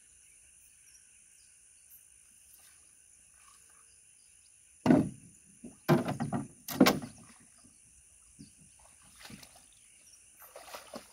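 Faint steady insect chirring, then from about five seconds in a cluster of splashes and knocks from a small boat and the water around it, with a few softer ones near the end.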